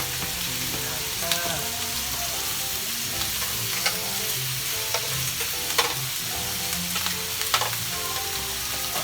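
Pork belly sizzling steadily on a tabletop grill, with a few sharp clicks scattered through it.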